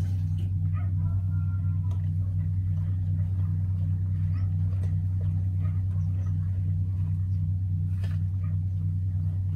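A steady, low engine-like drone with a regular pulsing beat running throughout, from a motor running nearby.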